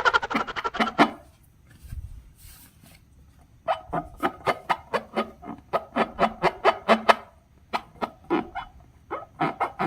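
Slime being squished and worked by hand, making quick runs of sticky clicks and pops. A short run comes at the start, then a lull, and longer runs follow from a little over a third of the way in.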